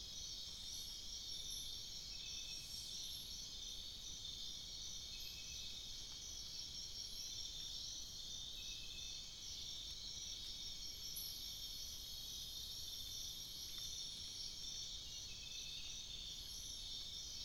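Night-time Amazon rainforest insect chorus: a dense, steady, pulsing trill of many insects such as crickets and katydids. Short chirping calls repeat every couple of seconds, and a long high whine starts about halfway through.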